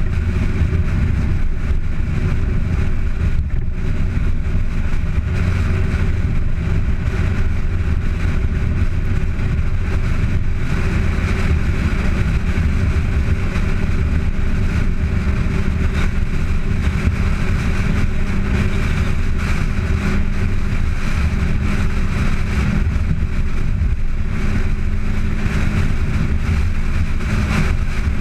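Car on the move: a steady low rumble of engine, road and wind noise picked up by a camera mounted on the bonnet. A faint steady engine hum becomes clearer in the second half.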